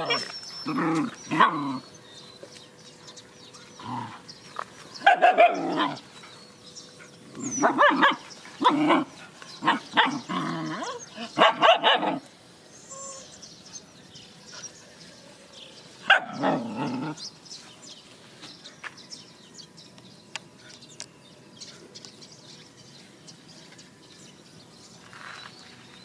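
A group of dogs barking in short bursts as they scuffle, several at once in places; the barking stops a little after halfway, leaving only faint scuffling sounds.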